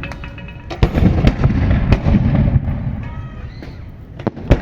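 Fireworks exploding: a series of sharp bangs with crackle and a low rumble between them, several in quick succession about a second in and two more near the end.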